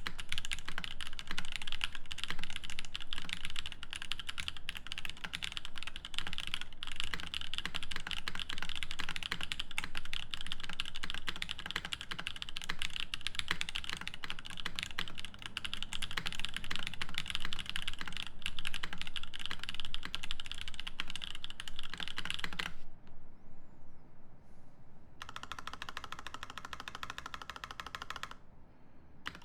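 Fast, continuous typing on a 350 mimi (OTD 356 mini clone) mechanical keyboard with lubed Moyu Black linear switches in an aluminium plate and GMK keycaps: a dense run of keystrokes. The typing stops about 23 seconds in. After a short silence, a quieter sound with steady tones follows near the end.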